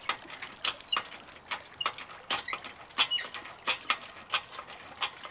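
Hand winch on an engine crane being cranked under the load of a sunken scooter, its ratchet clicking irregularly about twice a second, with a few short, high squeaks.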